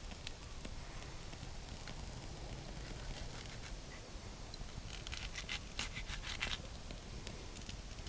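Large knife slicing through a raw chayote squash on a wooden stump: scattered faint clicks, then a dense run of crisp crackling crunches about five seconds in as the blade cuts through the firm flesh.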